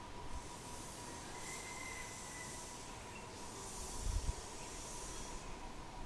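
Faint outdoor background: a high hiss that swells and fades in about three waves over a faint steady high tone, with a short low bump about four seconds in.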